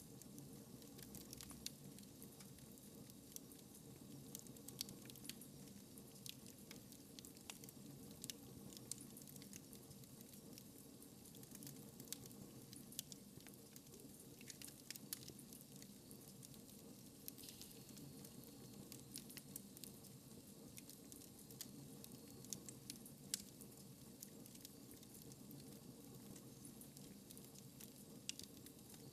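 Wood fire crackling in a fireplace, quiet: irregular sharp pops and crackles scattered over a steady low rush from the burning.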